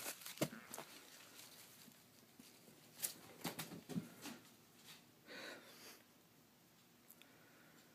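Faint scattered knocks and rustles from a Siamese cat playing fetch with a crumpled paper toy on carpet. There is a cluster of light knocks about three to four seconds in and a brief soft rustle a little after five seconds.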